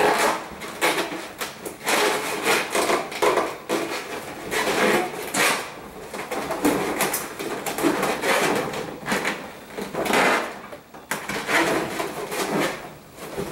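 Inflated latex balloons rubbing and squeaking against each other in short, irregular bursts as balloon pairs are pushed and twisted into a balloon garland.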